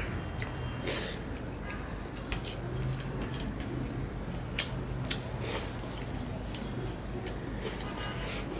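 Fingers squishing and mixing rice against a stainless steel plate, with wet mouth and chewing sounds: short, irregular squelches and clicks over a low steady hum.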